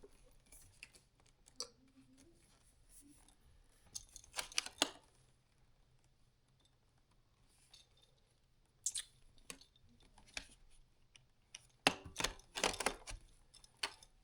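Hard plastic vacuum-cleaner parts clicking and rattling as they are handled and pushed together during assembly. The clicks come in short clusters: a few seconds in, again around the middle, and most densely near the end.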